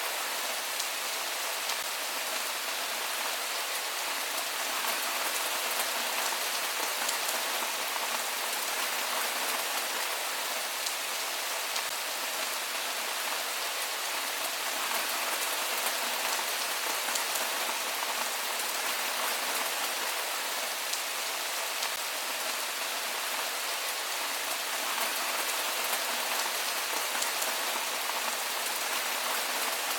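Steady rain falling on a surface: an even wash of sound with a fine patter of individual drops, unchanging throughout.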